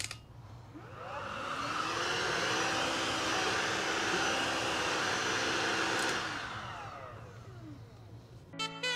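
Miele Triflex HX1 cordless stick vacuum switched on and run over carpet: its motor spins up with a rising whine, runs steadily for about four seconds, then is switched off with a click and whines down to a stop. Music starts just before the end.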